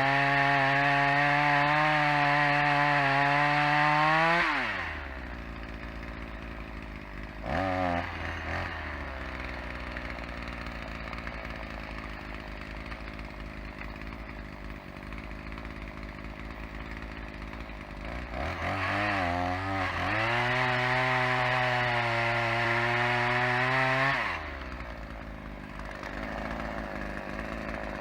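Two-stroke chainsaw cutting wood at full throttle, dropping to idle about four seconds in. It blips briefly, idles, then runs at full throttle again for about six seconds before falling back to idle near the end.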